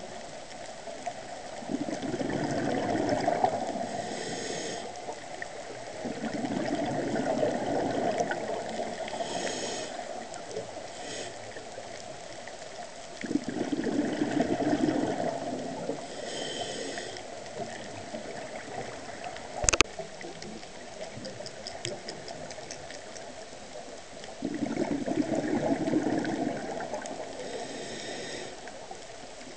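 Scuba diver's breathing through a regulator, heard underwater through the camera housing: four rushes of exhaled bubbles, each lasting a few seconds, with a long pause between the third and the fourth. A single sharp click comes about two-thirds of the way in.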